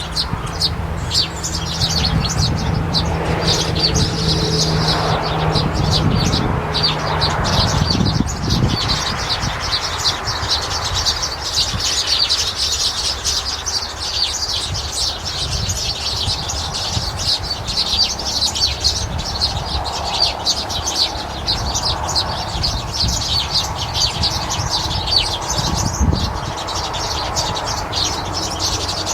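Many birds chirping together in a dense, continuous chorus of short high calls.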